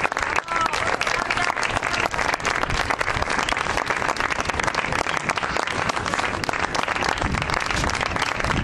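Many people clapping their hands together, a dense, steady patter of claps.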